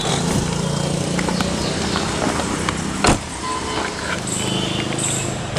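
A car door shut with a single solid thump about three seconds in, over a steady low hum; another short click comes at the very end.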